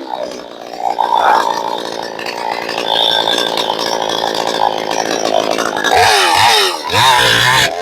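62cc two-stroke chainsaw with a 20-inch bar cutting through a stringybark gum log, running steadily under load; near the end the engine revs up and down.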